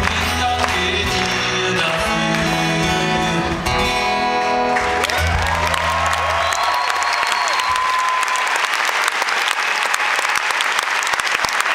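Acoustic guitar playing live, ending about five seconds in, followed by a concert audience applauding, with a whistle from the crowd.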